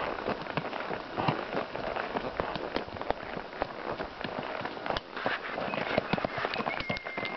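Horses walking on a dry dirt forest trail: a dense, irregular crackle of hoof steps and crunching underfoot.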